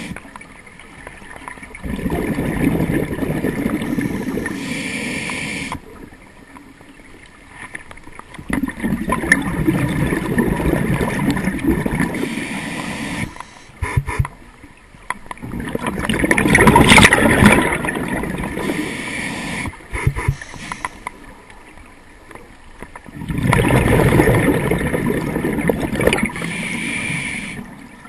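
A scuba diver breathing through a regulator underwater: four long exhalations, each a rush of bubbles lasting a few seconds, about every seven seconds, with quieter inhalations between.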